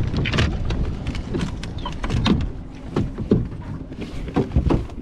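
Irregular knocks and clatter from fishing gear being handled on a small boat's deck, with wind rumbling on the microphone.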